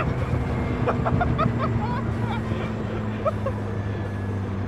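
The turbocharged Toyota 3TC four-cylinder of a Lotus 7-style kit car runs at a steady cruise. A man laughs briefly about a second in.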